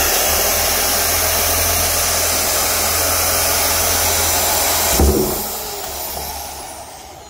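DeWalt corded drill running steadily at full speed, its bit boring through the top of a plastic drum. About five seconds in there is a short knock, then the motor winds down.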